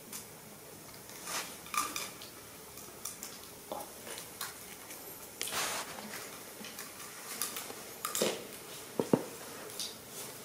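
A kitten batting a bent plastic drinking straw across a tile floor: scattered light clicks and short skidding scrapes, with a few sharper ticks near the end.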